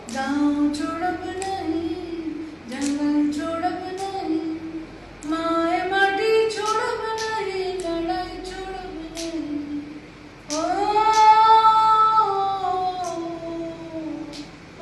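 A woman singing solo and unaccompanied: a winding melody in short phrases, then, about ten seconds in, a long, louder held note that swoops up and slowly falls away.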